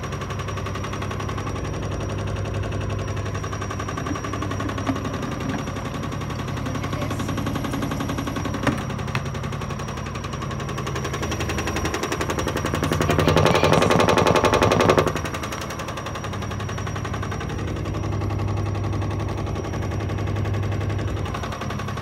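Front-loading washing machine running its service-cycle spin with a half load, the drum and cabinet giving a fast, continuous rattling knock over a low hum. The knocking swells louder about 13 seconds in and drops back abruptly about two seconds later.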